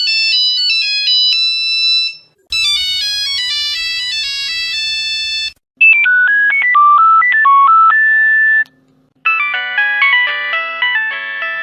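Nokia mobile phone ringtones: four short electronic melodies of clean beeping notes played one after another, each cut off after a few seconds with a brief silence before the next.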